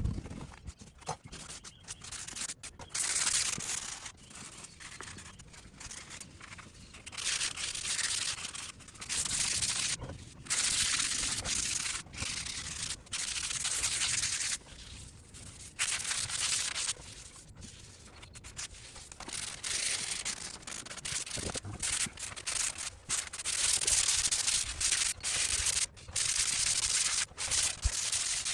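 Sanding on drywall joint compound, a rasping hiss in irregular strokes of one to three seconds with short pauses between them.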